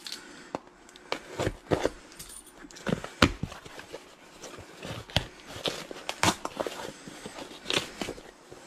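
Mail packaging and toys being handled: irregular knocks and clicks with some rustling between them.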